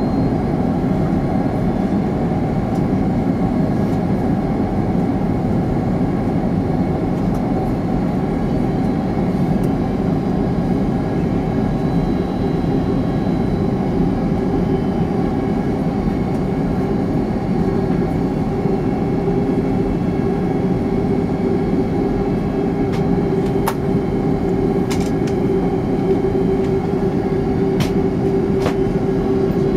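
Steady engine and airflow noise inside the cabin of a Boeing 767-300ER descending on approach, with a steady hum that grows stronger a little past halfway and a few faint clicks near the end.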